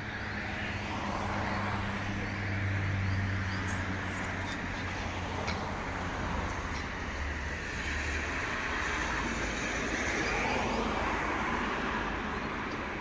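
Bombardier Dash 8-Q402 turboprop airliner passing overhead: a steady low propeller drone, strongest in the first few seconds, over the even rush of its engines.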